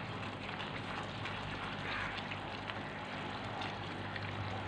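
Chilli chicken gravy boiling in a frying pan while a wooden spatula stirs it continuously, a steady crackling hiss with faint ticks, as the just-added cornflour slurry thickens the sauce. A low steady hum runs underneath.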